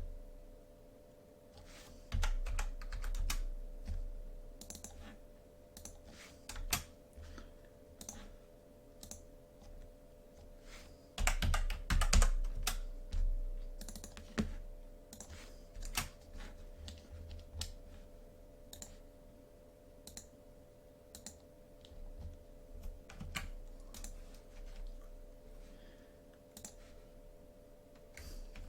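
Computer keyboard typing and mouse clicks: scattered keystrokes, with busier flurries about two seconds in and near the middle, over a faint steady hum.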